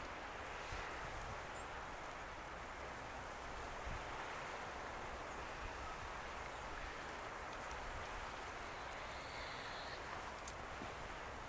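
Steady wash of wind and choppy harbour water, with a low wind rumble on the microphone.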